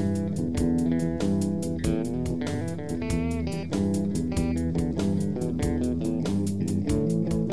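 Slow electric blues: electric guitar over bass and a steady programmed drum beat. About three seconds in, the lead guitar plays a phrase of bent notes.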